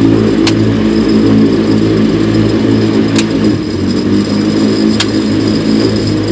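MWfly aircraft engine running steadily at about 3,100 rpm on a test bench. Three short sharp clicks sound over it, about half a second, three seconds and five seconds in.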